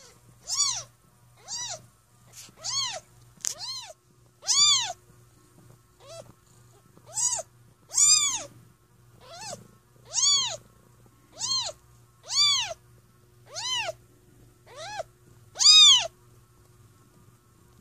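Newborn kitten mewing over and over, about fifteen short, high cries roughly a second apart, each rising and then falling in pitch, the last near the end the loudest. Under it runs a steady low purr from the mother cat.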